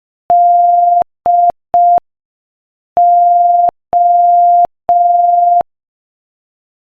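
Morse code sent as a steady tone of about 700 Hz at 5 words per minute: dah-dit-dit, a pause, then dah-dah-dah, spelling the letters D and O. Each tone switches on and off abruptly with a faint click.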